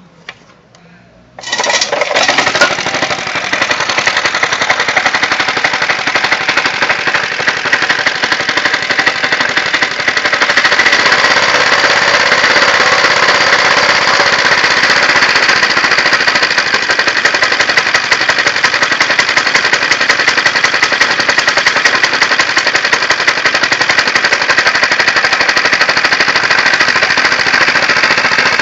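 Qualcast Commodore reel mower's 75cc single-cylinder four-stroke engine catching about a second and a half in and then running with a loud, rapid, steady firing, a little louder from about ten seconds in. It runs with its compression restored by lapped valves and a deglazed cylinder.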